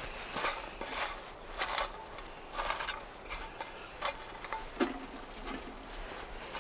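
Dry wood shavings and curls rustling and crinkling as a hand takes them from a plate and packs them into a small titanium wood stove, in a string of short scratchy rustles, with a light knock about five seconds in.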